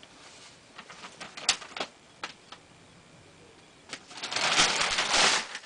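Handling noises: a few light clicks and taps, then a loud rustle lasting about a second and a half near the end.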